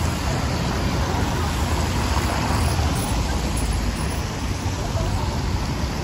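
City street traffic on a wet road: a steady wash of tyre hiss and engine rumble from passing cars, with faint crowd chatter.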